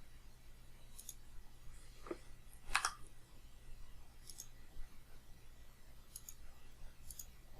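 Faint computer mouse clicks, each a quick press-and-release pair, a few seconds apart, with one louder brief noise a little under three seconds in.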